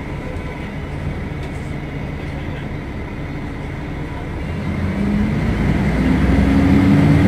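Diesel engine of a Mercedes-Benz O500UDA bus running steadily. It grows louder about two-thirds of the way in.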